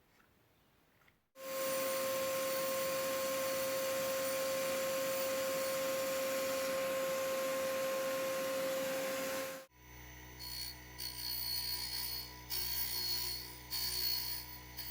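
A machine running steadily with a hiss and a high whine. About ten seconds in it cuts off abruptly to a lower hum, over which a tool scrapes against metal in short, repeated bursts as it touches the workpiece.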